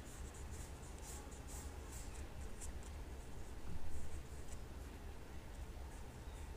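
Paintbrush sweeping and dabbing paint across paper in a run of short strokes, busiest in the first three seconds, over a steady low hum. A low thump about four seconds in is the loudest sound.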